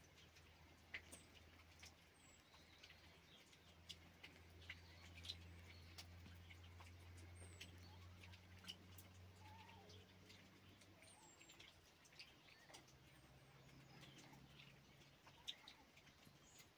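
Faint high chirps of small birds, a handful of short calls spread through, with scattered light ticks and a low steady hum underneath.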